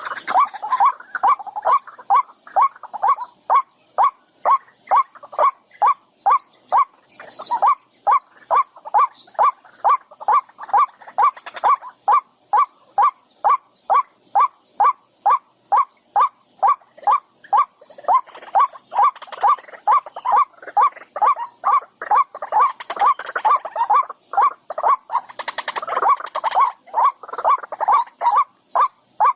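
A bird calling one short note over and over, about two or three times a second. Fainter, higher chirping comes in now and then.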